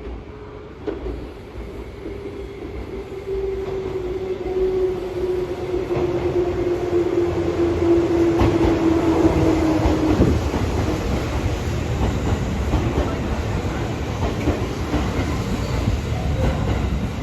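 Tobu 634 series train running through a station without stopping. The rumble of wheels on the rails grows louder, and a steady tone slowly falls in pitch until it stops about ten seconds in. Then comes the loud rolling rumble and clatter of the cars going by.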